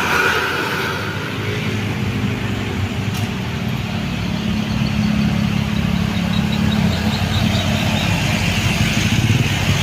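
Bus diesel engine running under load, a low drone that grows louder over the last few seconds as it approaches.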